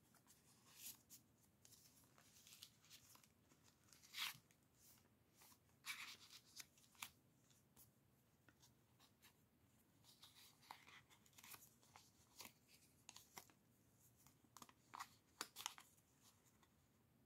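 Faint rustling and crinkling of paper and cardstock being handled: tags slid out of a handmade journal's pockets and a small folded paper piece unfolded. The rustles come in short scratchy strokes, loudest about four seconds in, about six seconds in, and a cluster near the end.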